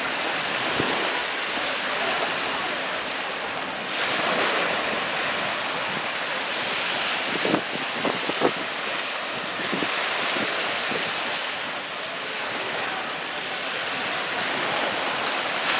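Small surf washing onto a sandy beach, mixed with wind buffeting the microphone. Two brief, sharp louder sounds stand out just past halfway.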